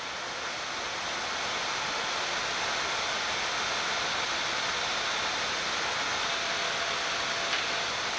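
Steady rushing air noise in a Boeing 787-9 flight deck during the climb after takeoff: airflow around the cockpit and the ventilation. It swells slightly over the first couple of seconds, then holds even.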